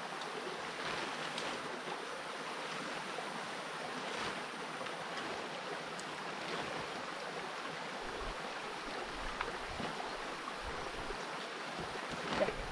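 Steady rush of a mountain stream running nearby, with a few faint clicks and rustles as tent poles and fabric are handled.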